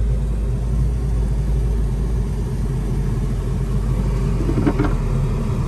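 Car engine and road noise heard from inside the cabin while the car moves slowly: a steady low rumble.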